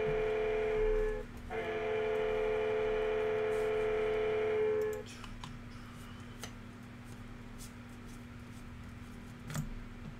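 Electronic buzzer giving a steady, buzzy tone that breaks off briefly just over a second in, then sounds again until about five seconds in. After it, faint clicks of cards being handled.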